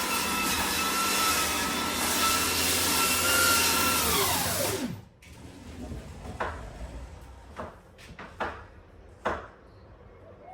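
Electric power sander running on wooden decking, then switched off: its motor whine falls as it spins down and stops about five seconds in. A few scattered knocks and clicks follow.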